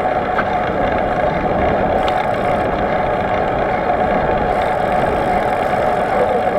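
Steady drone of a bike riding along a road, a continuous mix of running and wind noise at an even pace.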